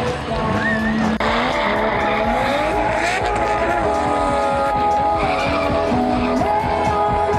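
Subaru drift car sliding, with its engine revving high and its tyres squealing, and music mixed in.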